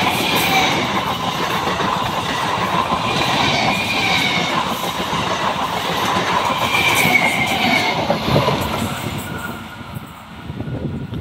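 EMU electric local train running past at speed: a loud, steady rush of wheel and rail noise with high wavering squeals. The noise drops off sharply near the end.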